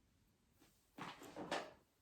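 Two short rustling scuffs about a second in: handling noise from someone working with her hair and styling tool.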